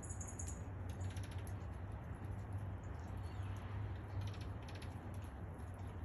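Steady rain hiss with a low hum underneath. Twice, about a second in and again after four seconds, a short run of rapid high ticks.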